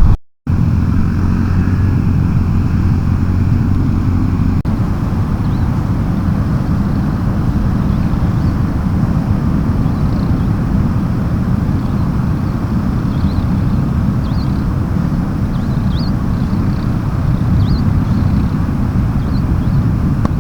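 Steady low rumble of a motor vehicle on the move, with faint short high chirps in the second half.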